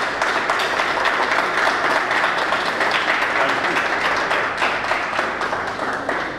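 A group of people applauding, many hands clapping at once, easing off near the end.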